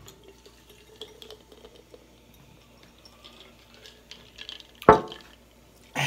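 Carbonated soda poured from a plastic bottle over ice into a glass jar, trickling and fizzing faintly. A brief, loud, low sound cuts in about five seconds in.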